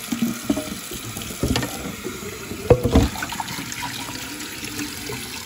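Water sloshing and splashing in a pot at the sink as burnt-on cheese is scraped off the bottom, with a few sharp knocks against the pot about one and a half and three seconds in.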